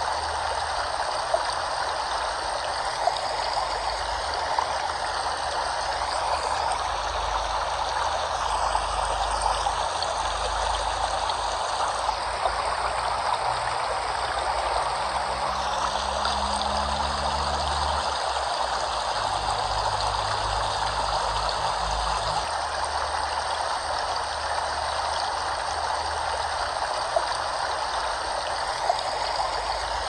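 Steady rush of flowing water, an even unbroken sound with no pauses.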